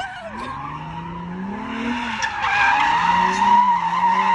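A car drifting on pavement: its engine revs up and down while its tires squeal. The squeal grows louder and peaks in the second half.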